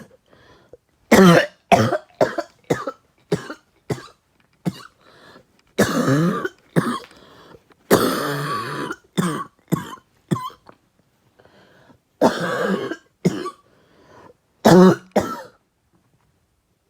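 A person coughing in a long fit of many short, harsh coughs with a few longer, drawn-out ones, set off by smoke from a bong hit. The coughing stops about a second and a half before the end.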